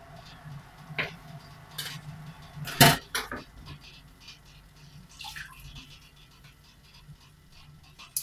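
Kitchen handling noises: a few sharp knocks and clatters of dishes or utensils, the loudest a little under three seconds in, over a faint steady low hum.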